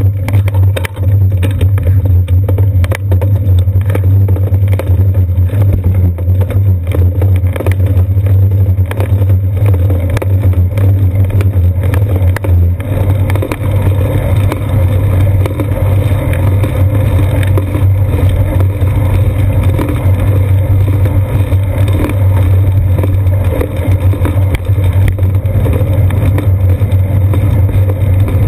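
Loud, steady low rumble of wind and road vibration picked up by a seat-post-mounted GoPro Hero 2 while the bicycle rolls along the road.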